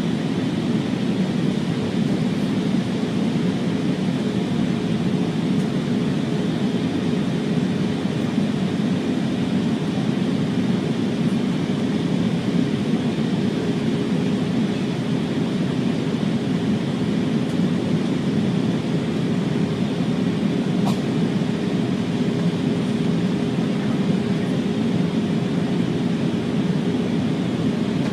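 Steady flight-deck noise of an Airbus A340 airliner: a constant rush of airflow and engine drone with a steady hum running through it.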